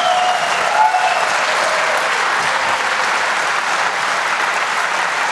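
Lecture-hall audience applauding steadily, with a few voices calling out near the start.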